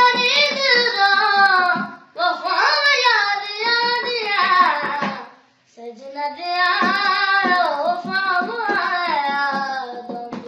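A young boy singing a Punjabi song solo, long phrases with wavering, ornamented pitch and a short breath pause about five seconds in.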